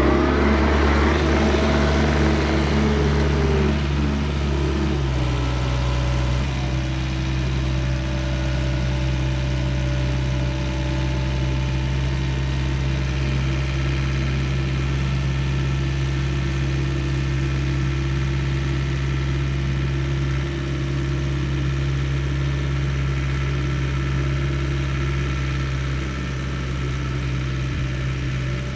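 Diesel engine of a compact construction machine running steadily. It is louder and rougher for the first few seconds, then settles to an even run.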